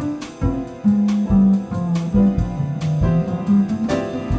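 Jazz piano trio playing: piano chords over a plucked upright double bass line whose held low notes step downward from about a second in, with drum-kit strikes and cymbals.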